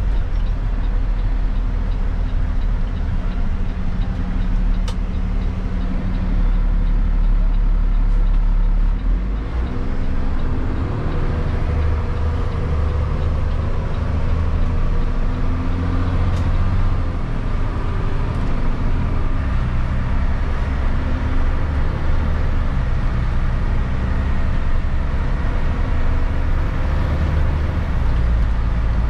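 Heavy-duty tow truck's diesel engine running under load while towing a loaded chip truck, heard from inside the cab, its note stepping to a new pitch about ten seconds in, again around eighteen seconds and near the end as it accelerates through the gears, over steady road noise.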